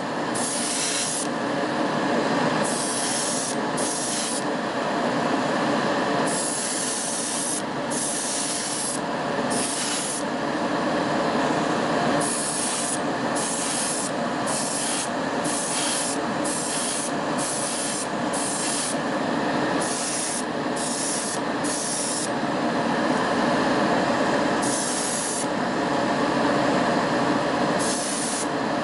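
Clear coat being sprayed in about twenty short bursts of hiss, each starting and stopping abruptly, with a longer pause near the end, over a steady rushing noise underneath.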